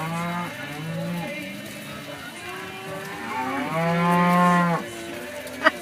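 Cattle mooing twice: a call about a second long at the start, then a longer, louder moo of about two seconds through the middle. A few sharp clicks come near the end.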